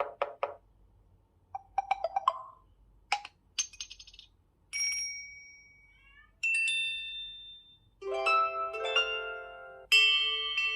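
A run of Samsung Galaxy S4 notification sounds played back to back: about seven short electronic chimes, blips and beeps, each a second or less, with brief gaps between them.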